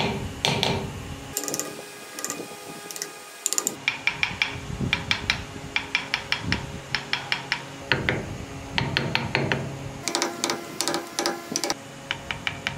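Woodcarving chisel cutting into wood in runs of small sharp clicks, about six to eight a second, in several bursts with brief pauses between them.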